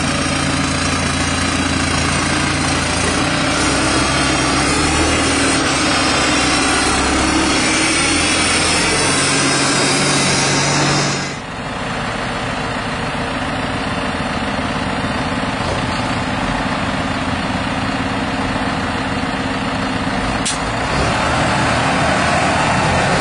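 Big farm tractors' diesel engines, a Massey Ferguson 7618 and a Claas Arion 540, running loud in mud with straight-piped exhaust, the engine note shifting in pitch. About eleven seconds in the sound dips and changes abruptly, then runs on steadily, with one sharp click near the end.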